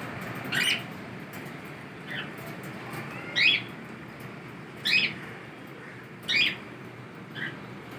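Cockatiels giving short, repeated chirping calls, six in all, about one every second and a half.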